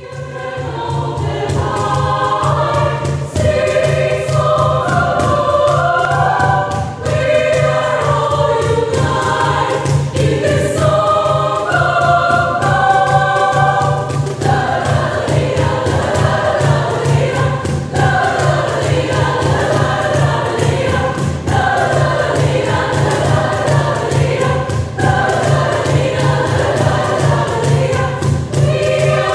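Mixed choir of women's and men's voices singing in several parts. It holds long chords at first, then about halfway through moves to livelier, faster-moving lines.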